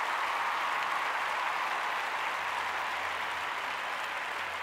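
Steady, even rushing noise, much like applause, that starts abruptly and holds with a faint low hum beneath it.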